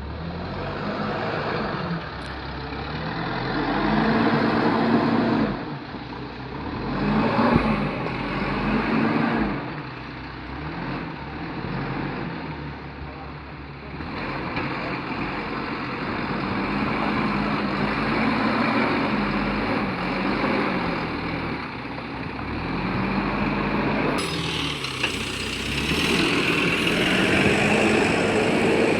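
Diesel engine of a JCB backhoe loader working, its pitch rising and falling again and again as it is revved under hydraulic load while backfilling.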